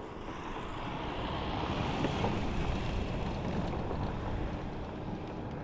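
A vehicle driving along a dirt track, its noise swelling about two seconds in and then easing off, with wind on the microphone.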